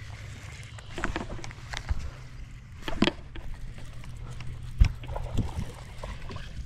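Steady low wind rumble on the microphone, with scattered clicks and knocks from handling a baitcasting rod and reel through a cast. The loudest knocks come about three seconds in and as a sharp thump near five seconds.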